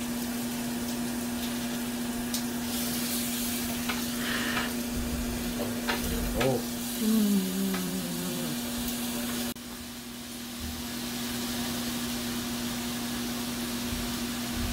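Pork belly sizzling as it grills: a steady frying hiss over a constant low hum. The hiss drops suddenly about nine and a half seconds in, then builds back up.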